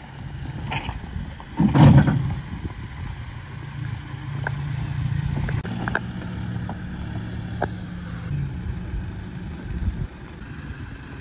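Toyota Tacoma pickup engine running at low, steady revs while crawling over rock ledges, with a few sharp clicks of tyres and rocks. A brief loud noise comes about two seconds in.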